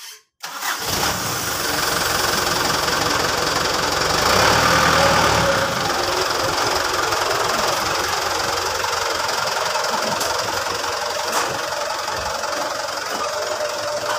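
Mitsubishi Fuso Canter truck's turbo-intercooled diesel engine idling steadily, louder for a couple of seconds about four seconds in.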